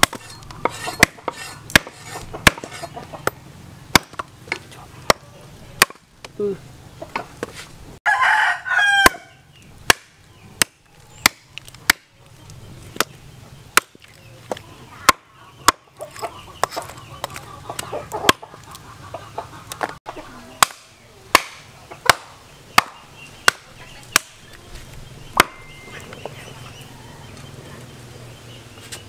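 Small hatchet chopping through meaty leg bones onto a wooden chopping block, sharp chops about twice a second, thinning out near the end. A rooster crows once, about eight seconds in.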